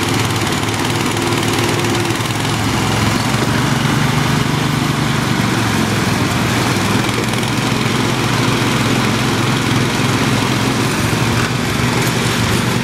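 Two Sears garden tractor engines running hard under load as the tractors pull against each other, their rear tyres spinning and digging into the turf. The engine note is steady with small rises and falls in pitch.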